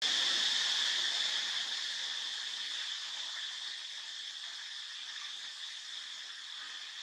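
Steady high-pitched insect chorus, starting suddenly and easing slightly over the first few seconds.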